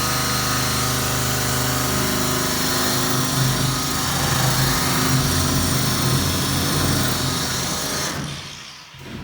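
Power tool spinning a wire wheel against the rusty steel runners of an old sled, a steady motor hum under a scrubbing hiss as the rust is stripped to bare metal. It winds down and stops near the end.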